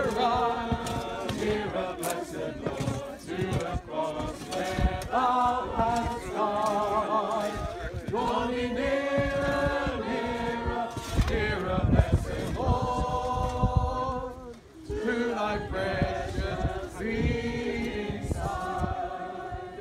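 A group of mourners singing a hymn together, unaccompanied, holding long notes.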